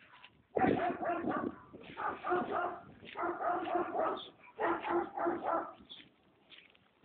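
A dog barking in four runs of rapid barks, each run about a second long.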